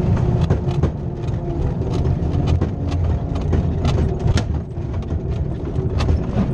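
Glider rolling on a grass airfield, heard from inside the cockpit: a steady low rumble from the wheel running over the uneven ground, with frequent knocks and rattles from the airframe and canopy.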